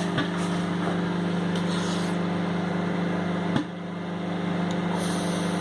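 Microwave oven running with a steady hum, while popcorn kernels popping inside give an occasional sharp pop, the loudest about three and a half seconds in. The popping has thinned to a few last pops as the batch finishes.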